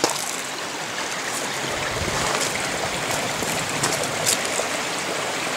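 Steady rush of a stream running over rocks, with a few light clicks.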